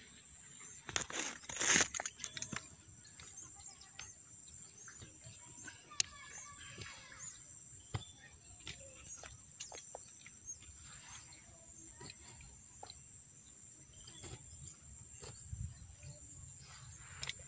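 Knocks and rustling from the phone being handled near the start, then quiet outdoor pond-side ambience with a steady high hiss and scattered faint clicks, one sharper click about six seconds in.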